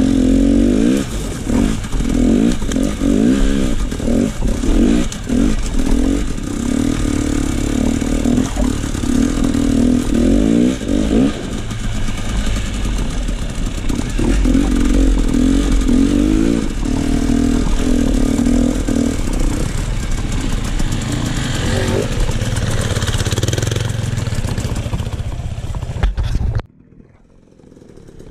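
KTM enduro dirt bike engine being ridden, the throttle opening and closing so the revs rise and fall again and again, with some rattling clatter. The engine sound cuts off suddenly near the end.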